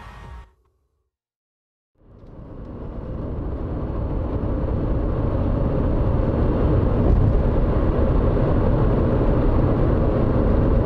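Road noise inside a moving car: a steady low rumble of tyres and running gear that fades in about two seconds in and builds over the next few seconds to a constant level.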